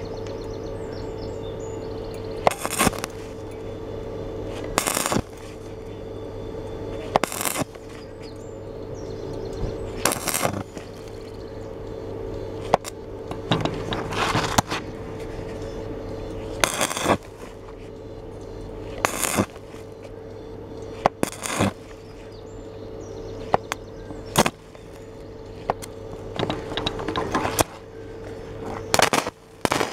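Stick-welding arc crackling in about a dozen short bursts, roughly every two seconds, as the electrode is struck and lifted in quick dabs to fill a large hole in thin 2.2 mm steel. A steady hum runs underneath.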